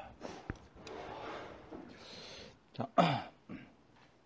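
A man eating very spicy noodles, with heavy noisy breaths and mouth sounds. About three seconds in comes one loud, short vocal exhale that falls sharply in pitch, a gasp from the heat of the food.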